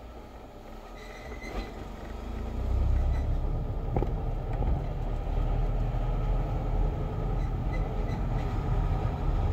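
Peugeot 307 1.6 on the move: a low engine and road rumble that builds up about two seconds in, with faint steady whistling tones above it. This is the strange whistle and grinding that the owner hears while driving and cannot explain.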